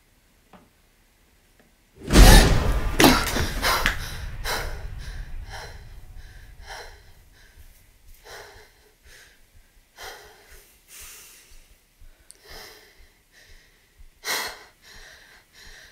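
A sudden loud, deep boom about two seconds in that fades over several seconds. It is followed by a woman's quick, uneven breaths and gasps, with one more sharp gasp near the end.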